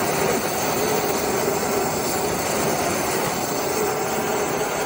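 MAPP gas hand torch burning against a steel wedge head, a steady rushing hiss of the flame with a faint steady tone underneath, heating the club to bring out heat-blued color.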